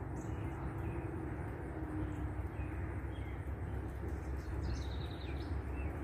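Outdoor ambience: a steady low rumble with a faint hum, and scattered faint bird chirps, with a quick series of them near the end.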